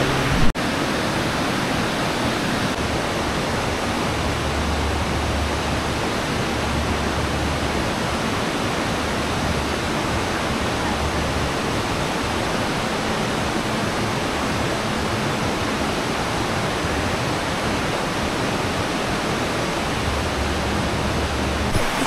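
Steady rushing of a mountain waterfall, an unbroken even roar of falling water, with a single click about half a second in.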